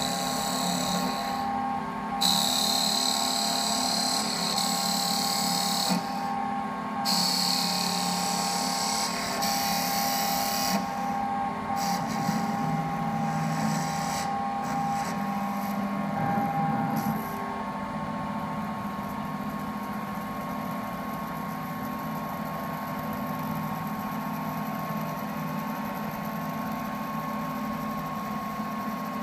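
Automatic bead-making wood lathe running: the cutter shaves the spinning wooden dowel with a high hissing cut in several stretches broken by short gaps, over a steady machine hum. The cutting stops a little over halfway through, leaving the steady hum of the running machine.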